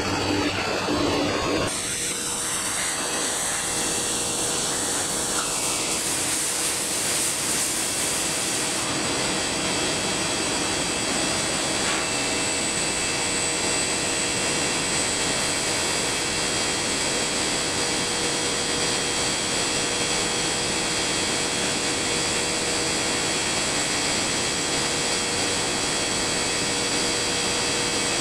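Steady factory machinery noise: a constant hiss with a few steady hum tones under it, the high hiss brighter for the first several seconds.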